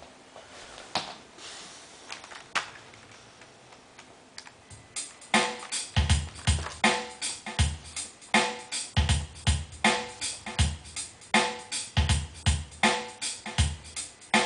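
A few scattered clicks, then about five seconds in a drum-machine beat starts: a steady pattern of kick drum with snare and hi-hat hits.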